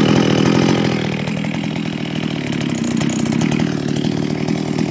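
Jonsered 451 EV two-stroke chainsaw idling steadily after settling down from higher revs. It is fitted with an exhaust take-off coupling on its muffler for inflating a felling cushion.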